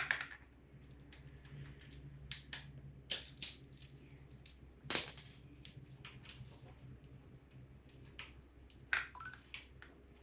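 Irregular metallic clicks and taps of hand tools as a bolt is torqued with a torque wrench, the sharpest click about halfway through.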